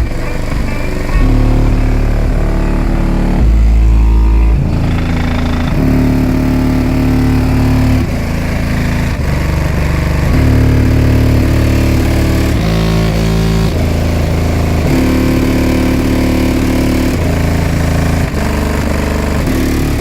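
Bass-heavy music played very loud through two 15-inch subwoofers in a car audio system, deep held bass notes stepping in pitch every second or two.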